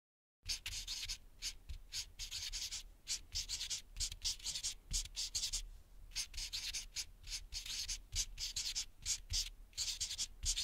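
Marker pen writing: a quick run of short, scratchy strokes as words are written out by hand, starting about half a second in, with a brief pause a little past the middle.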